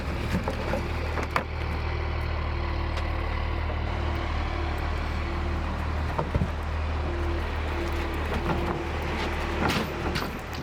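Heavy vehicle engine running steadily with a low hum, while a short beeping tone repeats about every half second to second like a reversing alarm.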